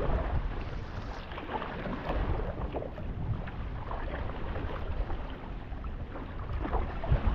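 Wind noise on the microphone over the splashing of paddle strokes on a stand-up paddleboard.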